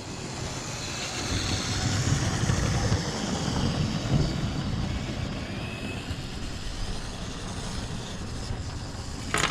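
HO scale model train running along its track: a steady rumble of the motor and wheels that builds over the first couple of seconds and then holds.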